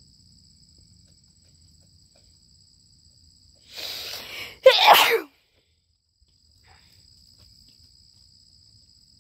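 A single loud sneeze: a breathy intake lasting most of a second, then a sharp, explosive burst. Steady high-pitched insect chirring runs underneath.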